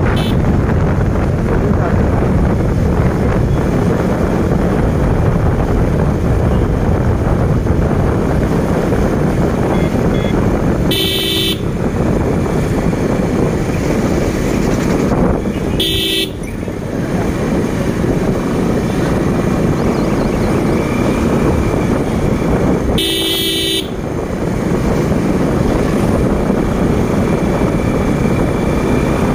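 Steady rush of wind and road noise from a motorbike riding along, with a horn honking three short times.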